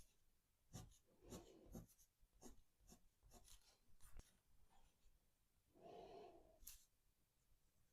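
Faint, scattered taps and scratches of a pen drawing on paper. About six seconds in there is one brief, soft sound with a vocal quality.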